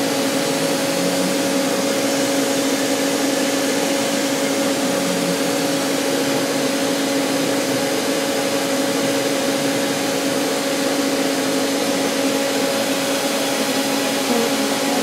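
Steady whirring hum of a powered-up DMG Mori Sprint 42/8 CNC Swiss-type lathe, its motors and fans running with no cutting, carrying two steady low humming tones.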